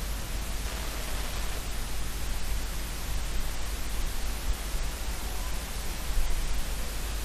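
Steady storm noise through an outdoor webcam's microphone: an even hiss over a deep rumble that swells a little now and then.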